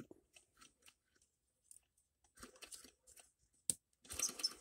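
Hands handling the small model engine and its ignition wiring: faint scattered clicks and small handling noises, with one sharp click a little after three and a half seconds and a short burst of handling noise about four seconds in.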